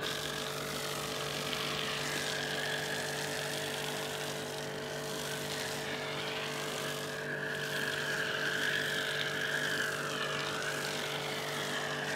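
Pressure washer running steadily with its motor hum, driving an MJJC foam cannon that hisses as it sprays snow foam onto the car.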